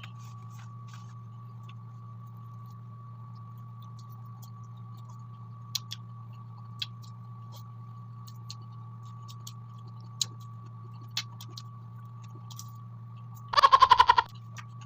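Quiet eating of fried chicken wings: sparse faint clicks and smacks of chewing over a steady low electrical hum with a faint high whine. Near the end a short loud vocal sound breaks in.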